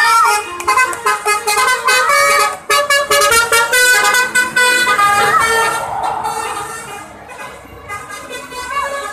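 Bus telolet horn, a set of musical multi-tone horns, playing a short tune with several notes sounding together and changing pitch in steps, then growing quieter about six seconds in.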